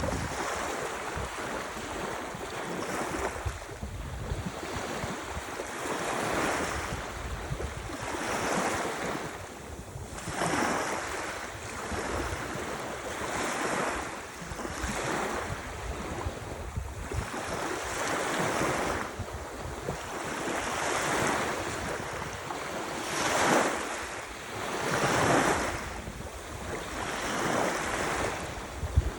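Ocean surf washing in, swelling and easing every two to three seconds, with wind rumbling on the microphone.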